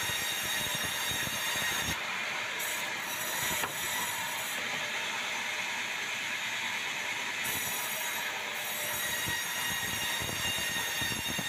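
Sawmill band saw running steadily as it rips white meranti into planks: a continuous whine of several high steady tones over the hiss of the blade cutting. The highest hiss thins out for a few seconds in the middle, and there is a single sharp knock about three and a half seconds in.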